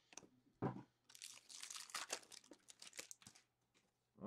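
Hockey card pack wrapper crinkling as hands handle it and the cards, for about two seconds. A single dull thump comes just before it, about half a second in.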